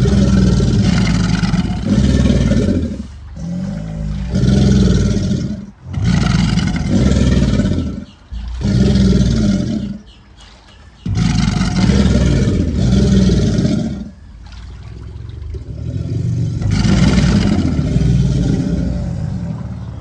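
Several American alligators bellowing: a run of about ten deep, loud bellows, each a second or two long with short pauses between, one swelling slowly louder past the middle. This is the alligator's mating-season bellow, given by both males and females.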